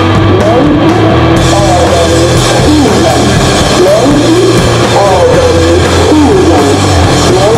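Loud, distorted punk rock: overdriven guitar, bass and a full drum kit playing at full tilt, with bending pitched lines over the top. The sound gets brighter and fuller about a second and a half in.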